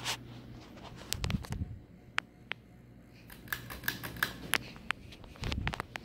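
Harbor Breeze Woodbridge 52-inch ceiling fan humming low, with a string of sharp clicks and a couple of dull knocks as its lights are switched on. The hum drops away about half a second in and returns near the end.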